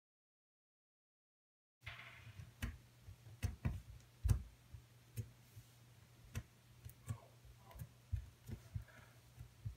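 Fingers pressing and poking a lump of slime on a wooden tabletop: irregular small clicks and taps, over a low steady hum. It starts about two seconds in, after dead silence.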